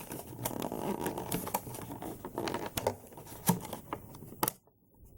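Plastic action-figure packaging being handled: rustling and a run of sharp clicks and snaps as the figure is worked free of its tray and ties, with two louder snaps in the second half.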